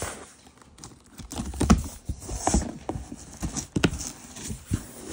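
Hands opening a taped cardboard box: irregular knocks and thumps on the cardboard, with a short scrape about two and a half seconds in.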